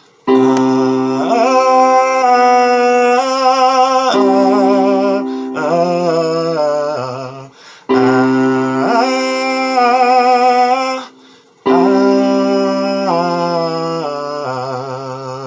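A man's voice singing a vocal warm-up exercise with vibrato over held chords on an electronic keyboard, in the key of C with an added seventh. It comes in phrases, with short breaks about 7.5 and 11.5 seconds in.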